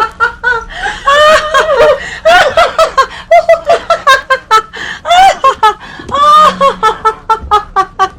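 Two women laughing hard and without stopping, in quick repeated bursts of ha-ha with short gasps for breath between.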